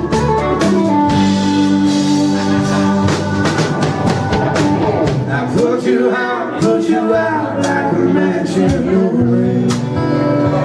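Live band playing a country-rock song: guitars and a drum kit with a steady beat, and possibly sung lines.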